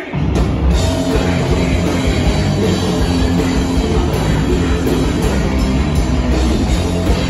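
Hardcore punk band playing live at full volume: distorted guitars, bass and drums crash in together at once and drive on steadily.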